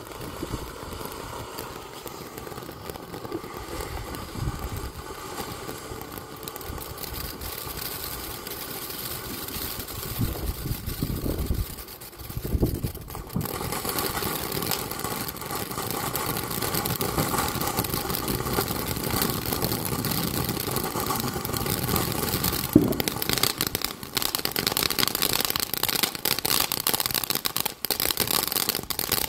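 Phantom Fireworks Pixie Dust fountain burning with a steady hiss of spraying sparks. It grows louder about halfway through and crackles near the end as the stars burst, then stops.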